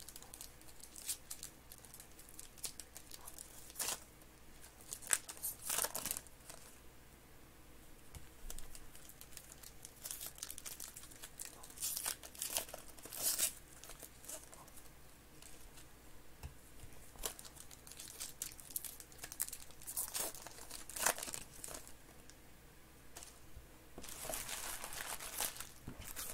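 Foil wrappers of 2021 Panini Certified Football trading-card packs being torn open and crinkled by hand, in short bursts of ripping and crackling every few seconds, with a longer stretch of crinkling near the end.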